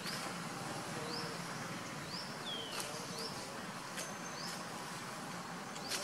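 Outdoor wildlife ambience: a steady hiss with a short, high rising chirp repeated about once a second, one lower falling call about midway, and a few faint clicks.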